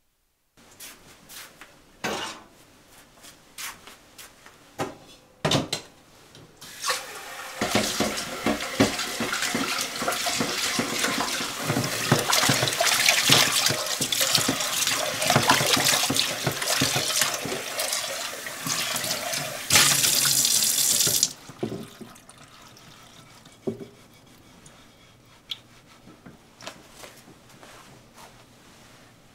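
Kitchen tap running into a stainless-steel sink while a bowl is rinsed and scrubbed under the stream. The water gets louder for a moment and then stops sharply, with a few knocks of dishes being handled before and after.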